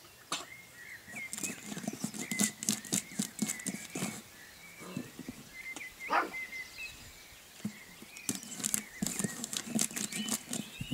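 Puppy licking and chewing at food on a tile, a run of wet smacks and clicks in uneven clusters.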